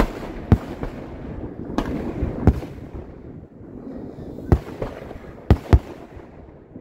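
Fireworks display: aerial shells bursting overhead, about seven sharp bangs at uneven intervals, two in quick succession near the end, over a continuous rumble of the display.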